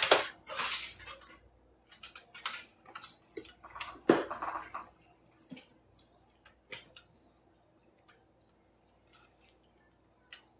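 Hard chunks of pressed cornstarch being handled and broken apart, making irregular sharp clicks and crackles. There is a louder crack at the start and another about four seconds in, and the clicks thin out through the second half.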